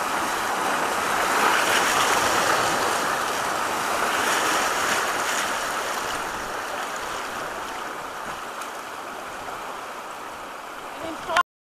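Whitewater of river rapids rushing and churning past the side of a canoe, a steady rush that eases off toward the end. It ends in a brief loud bump and cuts off suddenly.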